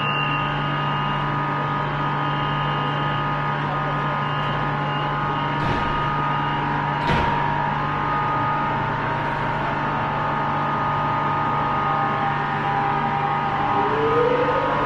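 Metro train at the platform giving off a steady electric hum and whine, with two sharp knocks about six and seven seconds in. Near the end a whine rises in pitch as the train's traction motors take it away from the platform.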